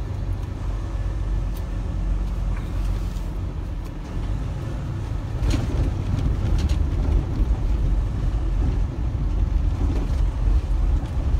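Semi truck's diesel engine and road noise heard from inside the cab while it drives slowly at town speed: a steady low rumble that grows a little louder about halfway through.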